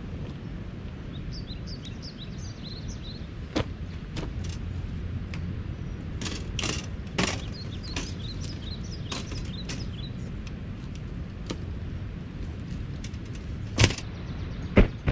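Clicks and clatters of camping gear being set up, a folding camp chair and metal frame being opened out, with two loud knocks near the end. A steady low rumble of wind runs underneath, with small birds chirping.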